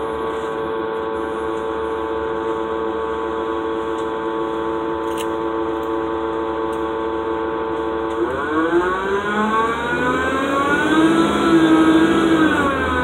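Cummins ISL diesel engine of a 2007 Gillig Low Floor bus, heard from inside the cabin. It runs at a steady pitch for about eight seconds, then revs up with rising pitch, holds, and falls away near the end. Its unusual, 'funky' sound is the sign of an engine fault.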